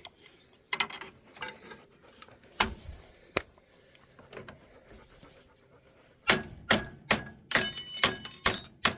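Metal tools and parts being handled: scattered sharp clicks and knocks, then from about six seconds in a quicker run of knocks with a brief ringing metallic clatter.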